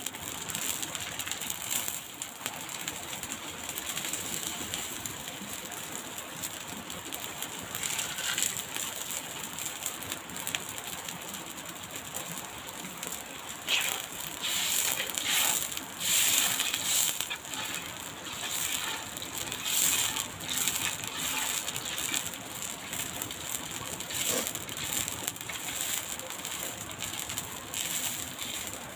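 Steady crackling and hissing of a pot of shrimp cooking over a fire, with louder patches about halfway through.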